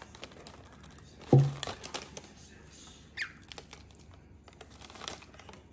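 Thin plastic cracker wrapper crinkling in scattered clicks and rustles as a cockatiel pecks and tugs at it. A loud knock comes about a second in, and a short falling squeak about three seconds in.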